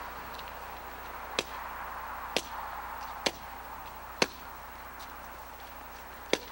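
Five sharp cracks over a steady hiss. The first four come about a second apart, and the last follows after a gap of about two seconds.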